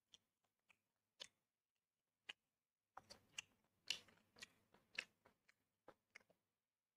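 Faint chewing of tandoori chicken: scattered soft clicks and smacks of the mouth, with a busier run of them about three seconds in that lasts a few seconds.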